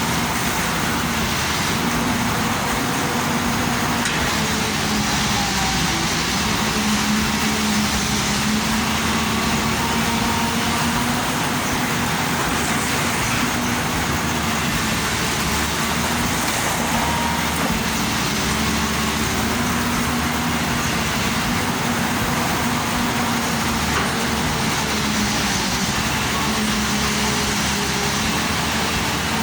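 Excavator's diesel engine running steadily, with a low hum that shifts slightly in pitch and strength now and then.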